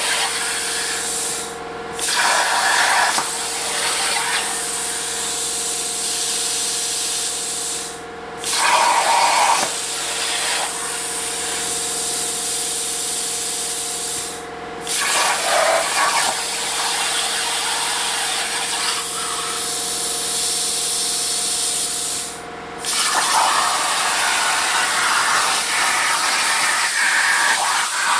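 Swift-Cut CNC plasma table with a Hypertherm plasma torch cutting stainless steel sheet: a steady hiss of the arc and air with a constant hum. The hiss stops briefly four times, about every six or seven seconds, and each time restarts with a short louder burst as the torch pierces the next cut.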